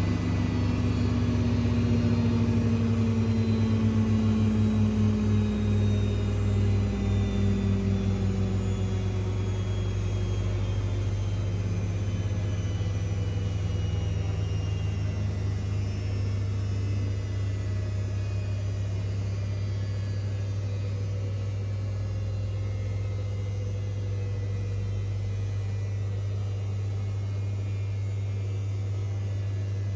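Zanussi IZ161W front-loading washing machine in a 1600 rpm spin, the drum motor's whine slowly falling in pitch as the spin winds down over a steady low hum. A brief pulsing beat comes in a few seconds in.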